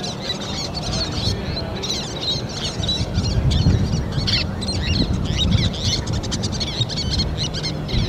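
Least terns calling: a busy run of short, high chirps, thickest in the middle, over a steady low rumble.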